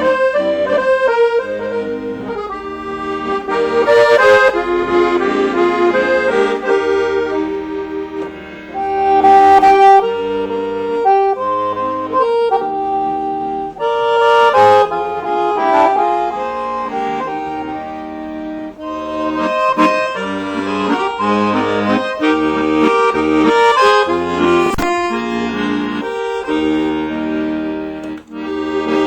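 Accordion playing a tune, with several held notes sounding together beneath the changing melody.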